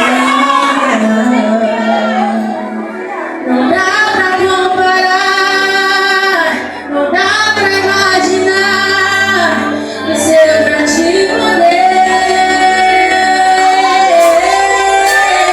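Live worship music: female-led group singing held, sustained notes over a band with bass and keyboard, in a large hall.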